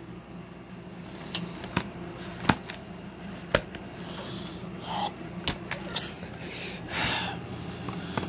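Handling noise from a DVD box set and its paper insert: a scattering of sharp clicks and short rustles over a steady low hum.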